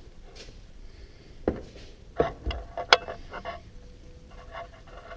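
Tools and metal parts being handled: a few knocks and clicks, the sharpest about three seconds in, followed by a faint ringing tone.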